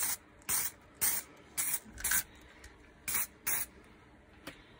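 Aerosol spray-paint can of OD green giving short hissing bursts, about seven in quick succession, each lasting a fraction of a second, as a light coat is dusted on.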